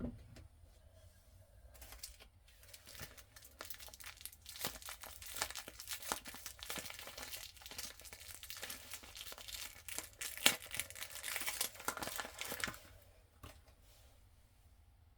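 Soap wrapper being torn open and crinkled by hand: a dense run of tearing and crackling with sharp clicks, which stops about two seconds before the end. A single soft knock right at the start.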